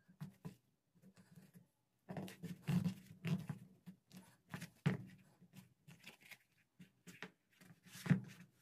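Irregular handling noise: scuffs, soft knocks and rubbing as hands flex an Adidas slide sandal and press along its stitched strap, with a few louder knocks, the loudest near the end.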